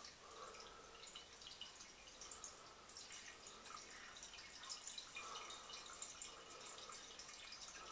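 Faint trickling and dripping of water in a toilet that fills almost to the top and then slowly drains down instead of flushing properly. A faint high tone comes and goes under the drips.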